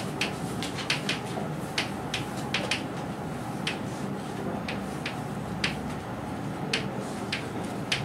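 Chalk writing on a blackboard: irregular sharp taps and short scrapes as the letters are formed, over a steady room hiss.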